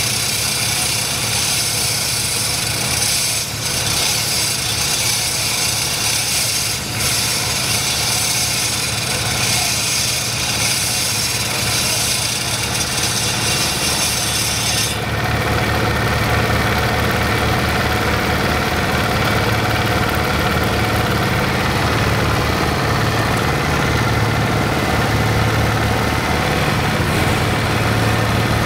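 Concrete cutter driven by a Kubota single-cylinder diesel engine. For the first half the saw blade grinds into the road surface with a loud, high, harsh noise over the engine's steady chugging. About halfway through the cutting stops suddenly and the diesel runs on alone with a low, even beat.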